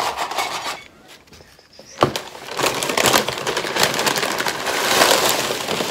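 Paper takeout bag crinkling and rustling as a hand rummages inside it, after a sharp knock about two seconds in.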